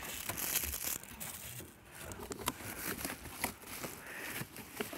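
Cardboard box and plastic packaging being handled: crinkling and rustling with scattered light clicks and taps.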